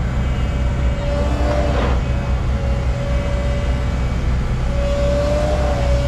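Cat excavator running as it works a tilt-rotator attachment: a steady low engine drone with a steady whine over it, and a brief hiss about two seconds in.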